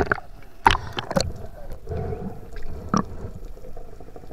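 Sea water splashing and gurgling around an action camera as it dips below the surface, with several sharp splashes and a muffled underwater wash between them.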